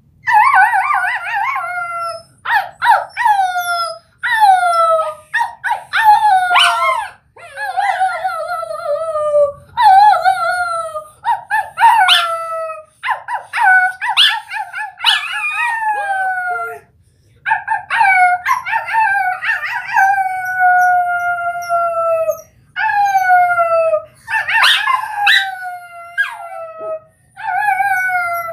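Small dog howling, a long run of howls each sliding down in pitch, with a girl howling along with it.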